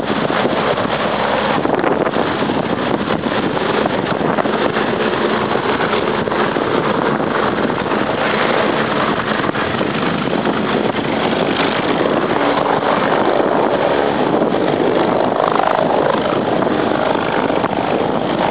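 Helicopter running steadily through a landing in strong wind, its turbine and rotor noise mixed with wind noise on the microphone.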